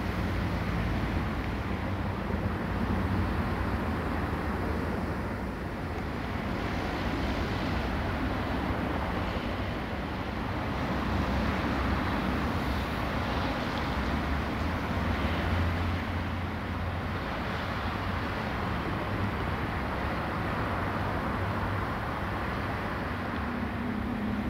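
Steady outdoor background noise: a low rumble under an even hiss that swells and eases gently, with no distinct single event.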